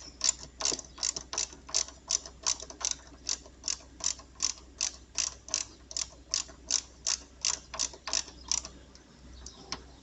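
Ratchet wrench clicking as a bolt is tightened, about three to four clicks a second, stopping near the end.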